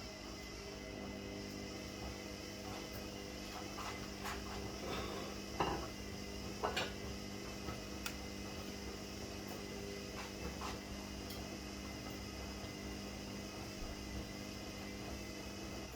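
A covered pot of eggplant curry simmering on the stove: a steady hum with scattered light ticks, and two sharper knocks about five and a half and seven seconds in.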